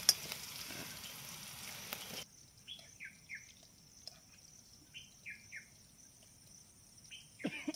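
Food sizzling and being stirred in a frying pan for about two seconds, then cutting off abruptly. A bird calls in two sets of three short, falling chirps over a quiet background.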